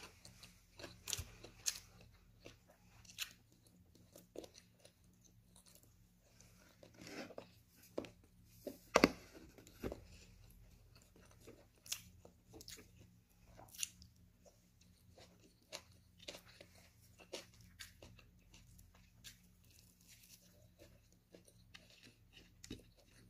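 A person chewing and eating grilled chicken and vegetables with their mouth close to the microphone: irregular sharp clicks throughout, the loudest about nine seconds in.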